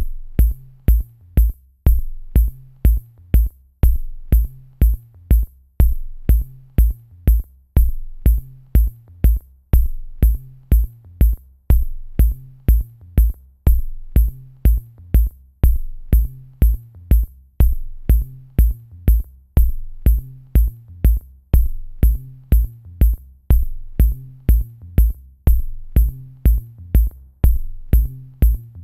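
Electronic background music with a steady drum-machine beat: deep kick drum hits and short high ticks, about two beats a second.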